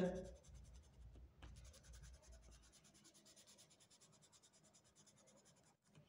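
Faint scratching of a red oil pastel on drawing-book paper as short curved lines are drawn, dying away about halfway through.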